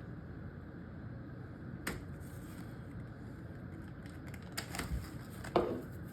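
Kitchen handling noises over a steady low hum: a light click about two seconds in, a few more clicks near the end, then one sharp knock.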